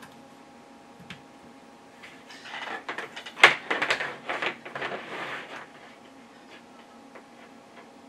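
An audio adapter cable and its plugs being handled on a desk. A few light clicks, then from about two seconds in a spell of rustling and clattering as the cable is gathered and its plugs knock on the desktop, with one sharp knock about three and a half seconds in.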